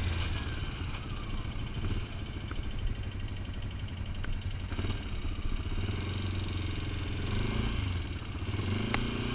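ATV (quad bike) engine running steadily as the machine rides along a dirt road, a continuous low rumble.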